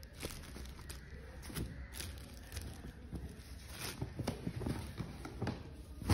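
Irregular rustling and soft knocks from a silk saree and its packaging being handled, over a steady low hum.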